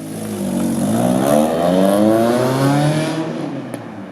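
Car engine revving: the pitch climbs for about a second and a half, holds briefly, then drops back down before the end.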